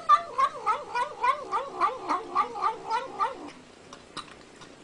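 A cat yowling in a quick run of wavering calls, about three a second, which stops about three and a half seconds in.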